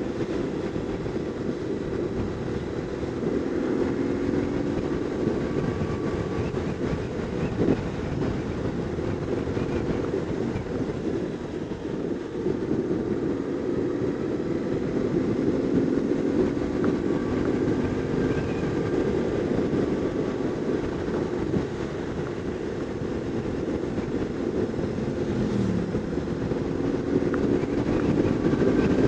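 BMW R850R's flat-twin boxer engine running as the motorcycle is ridden, a steady low rumble whose pitch shifts with the throttle, dropping briefly near the end and then growing louder as it pulls away.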